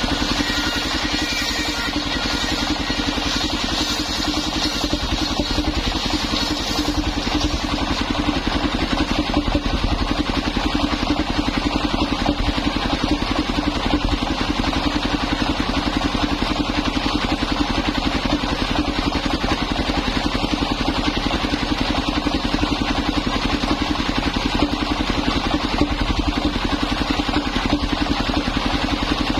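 The stationary engine of a portable circular sawmill running steadily with a fast, even beat, driving a belt-driven circular saw blade that rips old coconut-palm timber. A higher ringing from the blade stands out in the first several seconds.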